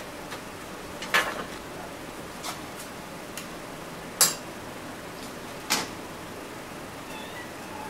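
Kitchen things being handled on a wooden counter: a handful of separate knocks and clatters with gaps between them, the loudest about four seconds in.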